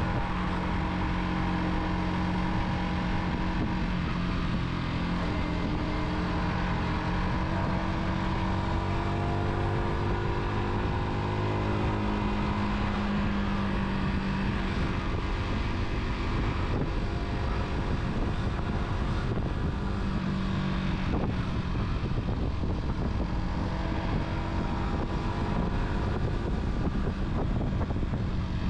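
Car engine running while driving, its pitch drifting up and down a little with speed, over steady road and wind noise.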